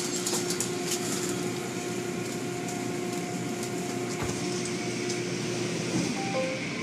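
Automatic car wash heard from inside the car: water spraying and cloth wash curtains sweeping over the windshield, with scattered ticks of spray on the glass and a steady machine hum that stops about four seconds in.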